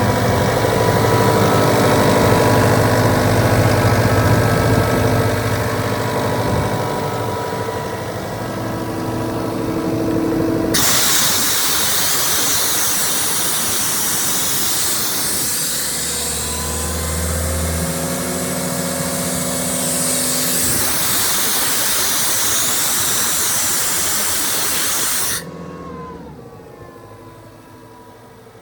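CompAir C76 towable air compressor running with its engine turning steadily. About 11 seconds in, a loud hiss of compressed air being blown off starts suddenly, lasts about 15 seconds and cuts off abruptly. The engine then keeps running, much quieter.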